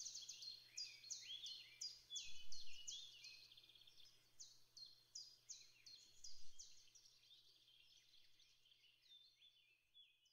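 Several woodland birds singing, a dense run of quick chirps and falling whistles that thins out towards the end. Two brief low rumbles cut in, about two and a half seconds and six seconds in.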